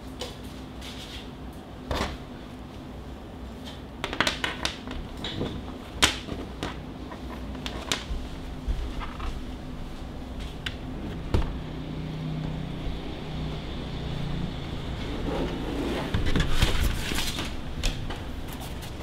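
Plastic panels of a folding mini photo studio box being handled: scattered clicks and knocks, with a denser stretch of rustling near the end, as the USB cable is fitted to its LED light strip and the box is opened out.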